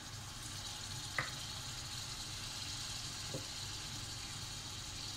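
Mixed vegetables frying in hot oil in a pressure cooker, a steady low sizzle, with two light clicks about a second in and about three and a half seconds in.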